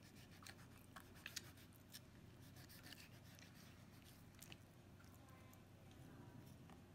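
Faint sounds of a large kitchen knife slicing raw geoduck on a wooden cutting board: scattered soft clicks and scrapes of the blade against the board, over a steady low hum.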